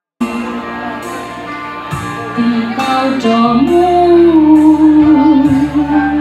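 A song starts suddenly with a backing of steady chords and guitar. A woman singing into a microphone comes in strongly about three and a half seconds in, holding long wavering notes.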